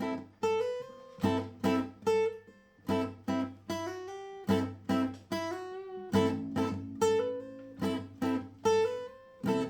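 Acoustic guitar strumming chords in a steady rhythm, about two strokes a second, each chord ringing out before the next: an instrumental intro with no singing.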